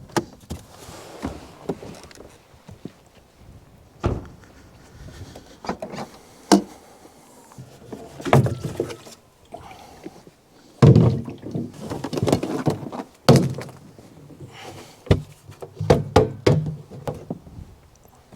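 Irregular thumps and knocks, about a dozen of them, the loudest around eleven and thirteen seconds in, with quieter handling noise between them.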